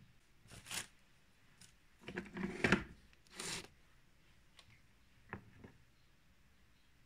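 A few short bursts of cloth rustling and light knocks as a teapot and a terry towel are handled on a kitchen counter; the loudest, a dull knock mixed with rustling, comes about two and a half seconds in.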